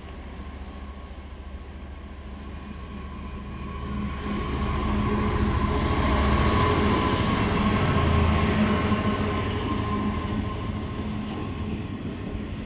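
DB Cargo Class 66 diesel-electric locomotive passing close by at the head of a train of hopper wagons, its two-stroke V12 diesel engine growing louder to a peak about six to eight seconds in, then easing as the wagons roll past. A high, steady wheel squeal on the rails sounds for the first few seconds as it approaches.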